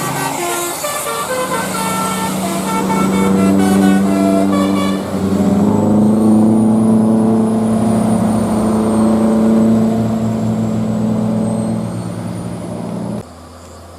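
Bus 'telolet basuri' multi-tone air horn played through roof-mounted trumpets, sounding a tune: quick stepping notes for about five seconds, then longer held notes, cutting off sharply about a second before the end.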